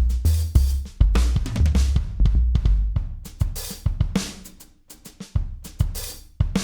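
Background music: a looped drum-kit beat with kick drum, snare, hi-hat and cymbals, its bass line dropping out partway through.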